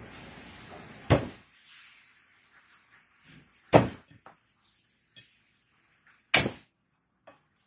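Kitchen knife chopping down onto a wooden cutting board while cutting garlic cloves: three sharp knocks, each a couple of seconds apart. A steady hiss runs in the first second.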